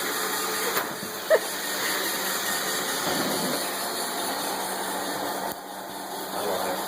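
Roomba robot vacuum running steadily, its motor and brushes humming as it sucks up debris from the carpet, with a brief sharp sound about a second in.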